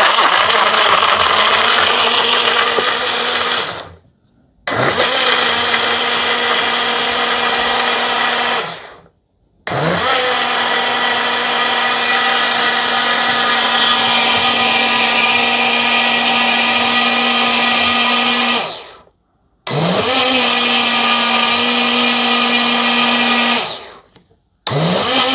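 Ninja Blast Max cordless portable blender crushing frozen fruit with liquid on its Crush program: the motor runs in stretches of about four to nine seconds, stopping briefly four times and starting again by itself.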